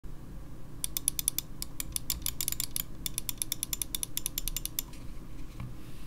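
Computer mouse scroll wheel being rolled: a quick, uneven run of small notched clicks that starts about a second in and lasts about four seconds.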